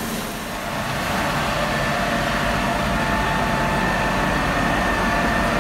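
Fire engine running steadily: a low engine drone with a faint, even whine above it.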